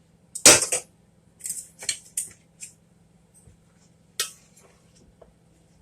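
A metal spoon and other cutlery clinking and scraping: about half a dozen short, sharp clatters, the loudest about half a second in.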